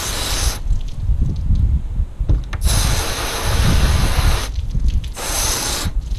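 Garden-hose spray nozzle hissing as water is sprayed onto a sockeye salmon fillet to rinse it, in three bursts: the first stops about half a second in, the second lasts about two seconds in the middle, and a short one comes near the end. A low rumble runs underneath.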